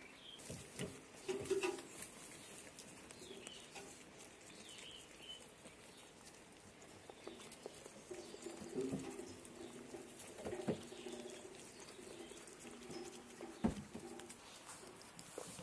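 Goats feeding at a metal feed bin: scattered sharp knocks and clicks against the feeder, and a low, cooing hum that comes in briefly near the start and again for several seconds in the second half. Faint high chirps sound now and then.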